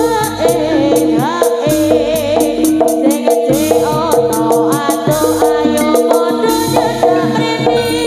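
Live jaranan gamelan accompaniment: struck bronze notes held at steady pitches, a pulsing low drum and regular sharp metallic strokes, with a wavering high melody line over them.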